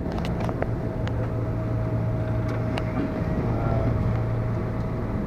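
Cabin noise of a KRL Commuterline electric commuter train under way: a steady low rumble and hum, with a faint steady tone above it and a few light clicks.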